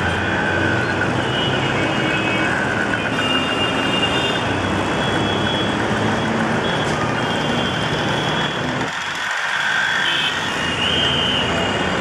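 Dense mixed city traffic: auto-rickshaws, buses, trucks, cars and motorcycles running and idling through a junction, a steady engine noise with repeated short horn beeps over it.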